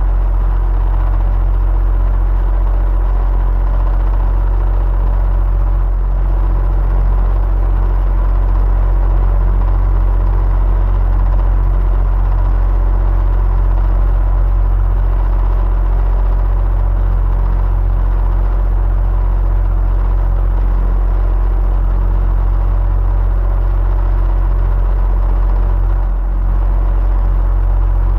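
Electric fan running steadily: a deep, even hum with airy noise above it and a few faint steady tones, dipping slightly for a moment near the end.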